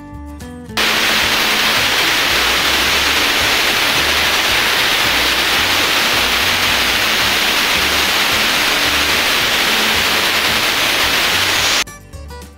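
Hot mustard oil with fenugreek and turmeric sizzling in a loud, steady hiss, the tempering (jhaneko) step of the dish. It starts abruptly about a second in and cuts off sharply near the end, over quiet background music with a low repeating beat.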